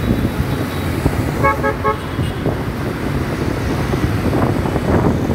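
Steady road and engine noise from a moving motorcycle in city traffic. A vehicle horn toots three short times in quick succession about one and a half seconds in.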